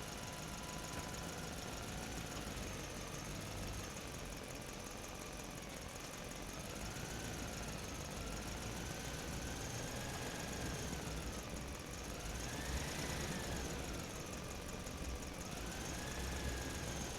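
Diesel engine of heavy earth-moving machinery running steadily, with a whine that rises and falls in pitch several times and peaks about two-thirds of the way through.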